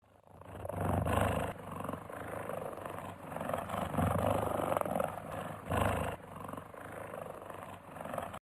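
A large wild animal giving a run of long, rough calls, loudest about a second in, around four seconds in and just before six seconds. The sound cuts off abruptly near the end.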